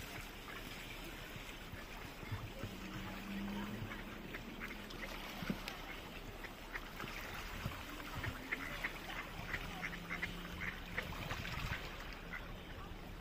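A flock of mallards quacking, many short calls overlapping, coming thicker in the second half.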